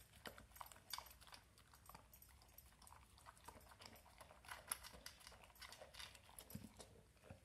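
Pit bull eating soft scrambled eggs from a stainless steel bowl: faint chewing and licking, made up of many small irregular clicks and smacks.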